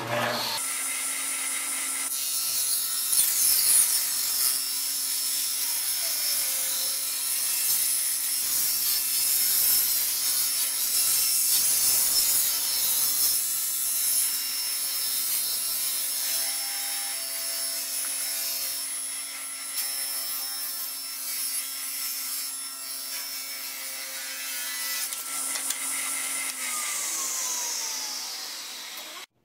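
Ridgid 10-inch table saw ripping about half an inch off the grooved edge of a pine tongue-and-groove board: the motor runs at a steady pitch under the cut for most of the time. Near the end it is switched off and winds down with a falling whine.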